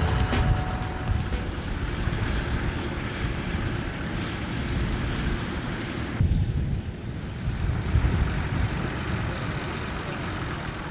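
Tractor engine running steadily while ploughing, a continuous low rumble, with the higher hiss easing off about halfway through.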